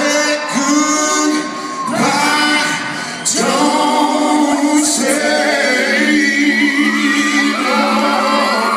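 Male R&B vocal group singing live in close harmony, several voices at once, largely a cappella with little or no bass underneath.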